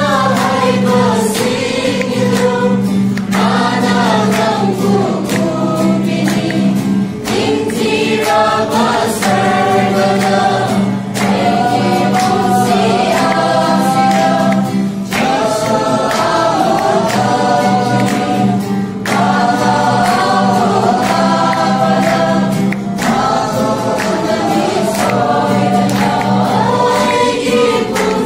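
A small group choir singing a Christmas song together, accompanied by an acoustic guitar, with the singing carrying on without a break.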